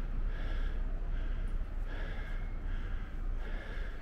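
A man breathing hard close to the microphone, quick breaths in and out repeating every half second or so, winded from climbing a long flight of steps. A steady low wind rumble on the microphone runs underneath.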